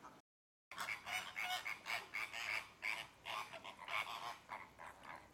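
Flock of flamingos honking: many short calls overlapping, several a second. They start suddenly about half a second in, after a moment of silence.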